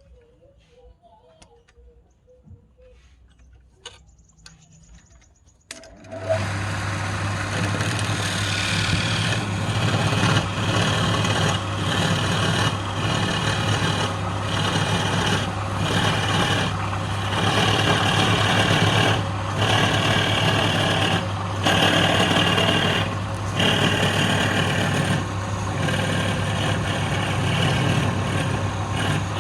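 A few faint clicks, then, about six seconds in, a wood lathe starts abruptly with a steady motor hum and the hissing scrape of a tool working the spinning wood. The scraping breaks off briefly every second or two.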